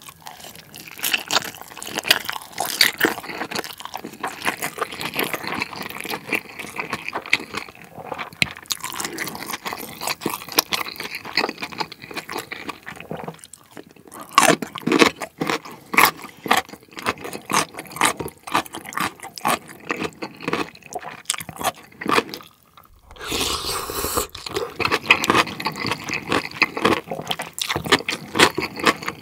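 Close-miked wet chewing and mouth smacking on a large juicy steamed dumpling (wang-mandu), with many small clicks. In the last few seconds a wooden spoon stirs and scoops through rice and broth in a ceramic bowl of pork soup.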